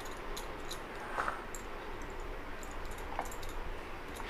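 Faint clicks and light taps of hands pressing a ball of bhatura dough flat on a steel rolling board, with a wooden rolling pin alongside. Two brief faint squeaks, about a second in and about three seconds in.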